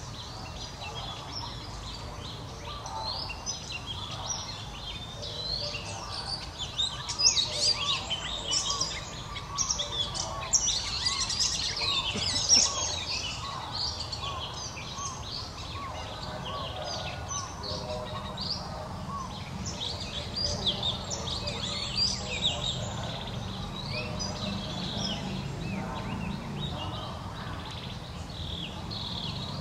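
Outdoor birdsong: many birds chirping and twittering in quick short high notes, busiest in the first half. Under them a lower call of short notes repeats about twice a second, and a low steady hum comes in about two-thirds of the way through.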